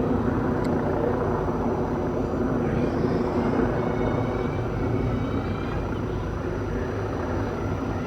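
Steady engine drone of motor vehicles moving along the race course.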